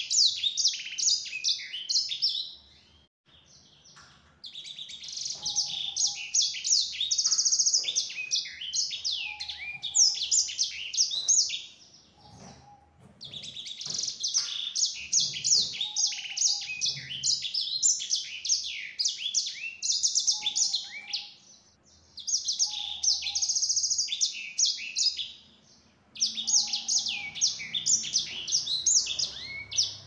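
Caged sanger, a small canary-type finch, singing long, fast, high twittering song phrases in five bouts of several seconds each, with short pauses between them.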